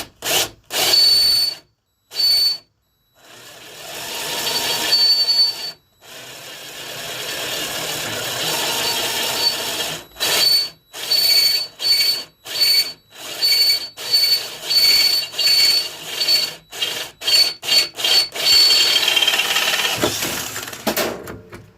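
Electric drill boring into metal. It runs in two longer stretches of a few seconds, then in many short trigger bursts, with a high motor whine that starts and stops with each burst.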